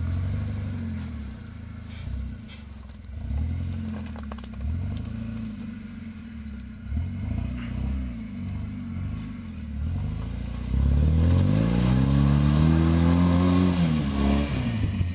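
First-generation Suzuki Vitara's engine revving up and down repeatedly as the 4x4 works through mud and shallow water. Near the end a longer, louder rev climbs and then drops away.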